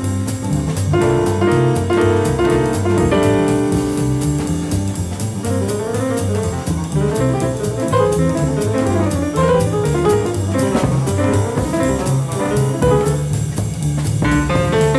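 Live jazz quartet: piano solo over double bass and drum kit. The piano holds chords in the opening seconds, then moves into quicker runs of notes from about five seconds in, over a steady bass line and an even cymbal beat.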